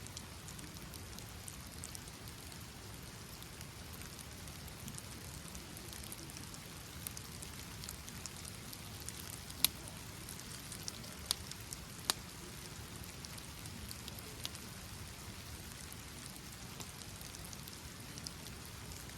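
Steady rain falling, with scattered sharp ticks through it and a few louder ones around the middle.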